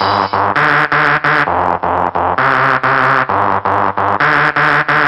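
Electronic synthesizer music: a fast, even run of short keyboard notes over a bass line that steps to a new note about once a second.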